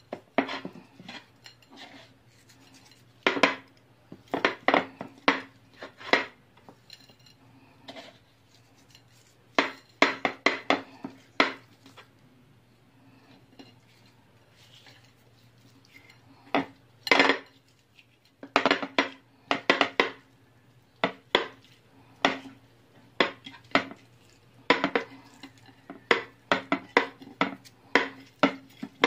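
A plate knocking and clinking against a tiled counter in irregular clusters of sharp clicks while boiled pork belly is handled and rubbed with salt on it. A steady low hum runs underneath.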